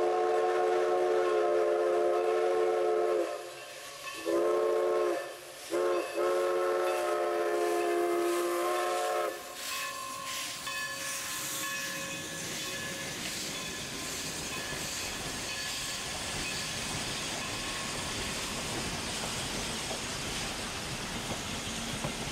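Steam locomotive whistle of Everett Railroad 2-6-0 No. 11 sounding a chord of several tones in four blasts, long, long, short, long, the grade-crossing signal. After that comes the steady hiss of steam and the rolling noise of the passenger cars going by.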